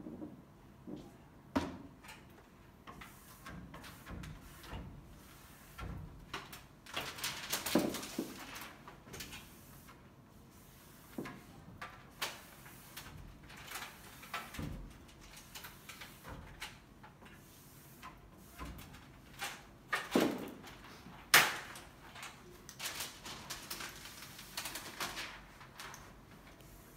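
Scattered rubbing, scraping and squeaking of hands pressing and smoothing adhesive smart film against a glass panel, with occasional knocks from an aluminium step ladder. A sharp knock a little after twenty seconds in is the loudest sound.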